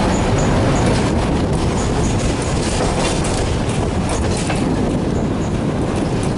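Tatra tram running along the track: a steady rumble of wheels on rails, with a few sharp clacks as the wheels pass over rail joints.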